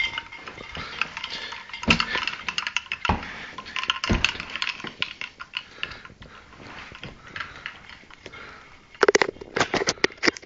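Close-up clicks, smacks and scratchy rustling from a man handling and kissing a pet parrot, irregular throughout, with a dense run of sharp clicks near the end.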